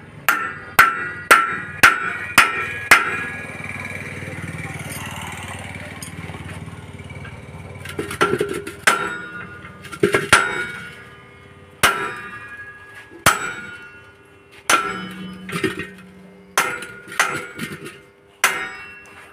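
Hammer striking the steel frame and hub of a disc harrow's disc gang: sharp, ringing metal-on-metal blows, a quick run of about six, then after a pause of several seconds with a steady low rumble, slower strikes about a second apart. The hammering is at the hub of a disc whose bearing has failed.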